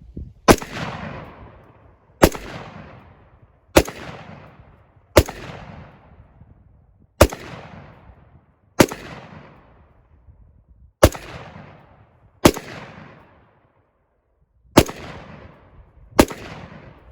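Ten single shots from a Palmetto State Armory .223 pistol, fired one at a time about every one and a half to two seconds, each sharp crack followed by a short reverberating tail.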